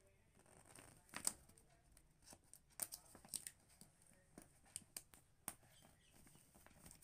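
Faint crackling and rustling of a wall-sticker sheet as small stickers are peeled from their backing, with scattered sharp clicks, the loudest about a second in.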